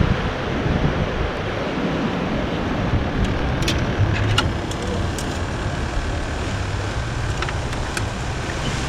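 Steady wind and surf noise, with a low rumble and a few sharp clicks near the middle and again near the end.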